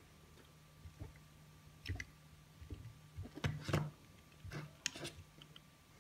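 Light clicks and knocks of small metal and plastic parts being handled: an SMA adapter screwed onto a handheld RF power meter and the meter set down on a cutting mat. The loudest cluster comes a little past the middle, over a faint steady hum.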